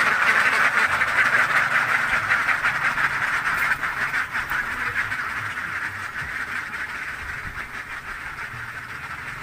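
A flock of brown laying ducks quacking together in a dense, continuous chorus that slowly fades as the flock moves away.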